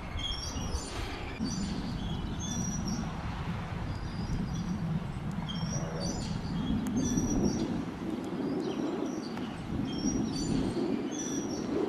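Small birds chirping, short high calls repeated every second or so, over a steady low rumble.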